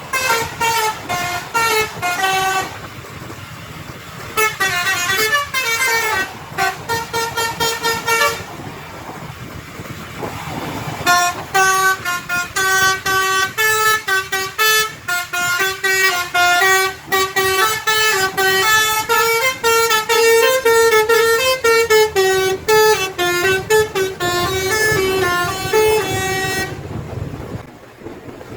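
Bus 'basuri' telolet horn, a multi-note air horn playing a tune in quick short notes over a low rumble, pausing briefly about three seconds in and again around nine seconds in, and stopping near the end.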